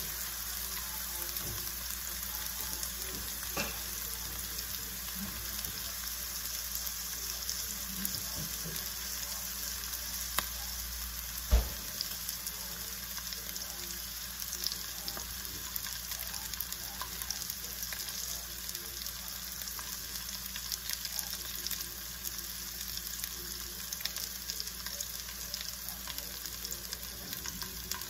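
Diced onions sizzling in oil in a pot, a steady crackling hiss. A single thump about eleven and a half seconds in.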